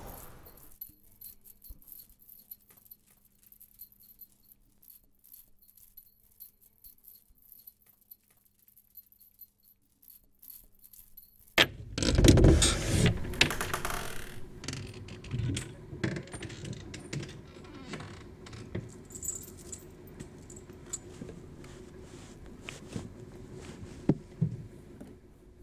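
Quiet room hum with faint clicks. About halfway through, a sharp click and a loud burst of rustling and clattering as a cupboard is opened and its contents are rummaged through, followed by scattered knocks and rustles.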